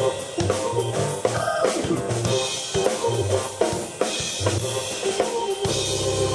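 Live electric keyboard and drum kit playing a rock jam, with a steady kick-and-snare beat under a moving keyboard bass line. Near the end the drums drop out, leaving a held keyboard chord over a low drone.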